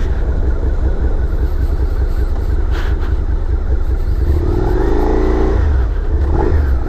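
Suzuki SV650's 645cc V-twin engine running as the bike is ridden at about 70 km/h, with heavy wind rumble on the helmet microphone. About four seconds in, an engine note rises and then falls away.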